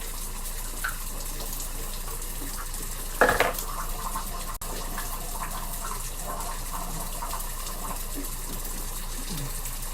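Water running steadily from a bathroom tap, with a brief louder sound a little over three seconds in.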